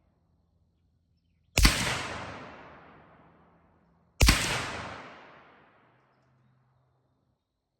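Two shots from a CZ 457 bolt-action .22 LR rimfire rifle, about two and a half seconds apart. Each is a sharp crack that fades away over about two seconds.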